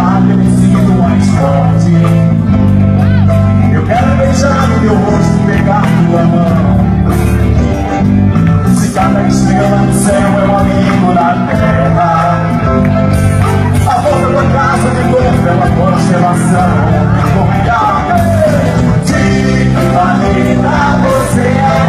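Music: a song with a melody line, likely sung, over steady band accompaniment.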